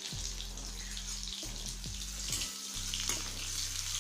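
Chopped onion sizzling in hot oil with cumin seeds in a kadhai: a steady hiss with scattered small crackles.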